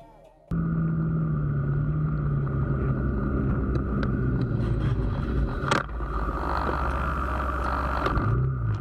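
A motorbike's engine running under steady wind and road noise, heard through a helmet camera as the bike rides in traffic, starting suddenly after half a second of near silence. A single sharp knock cuts through about two thirds of the way in.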